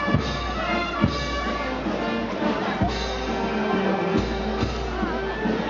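Procession brass band playing a slow march, with sustained brass notes and drum beats.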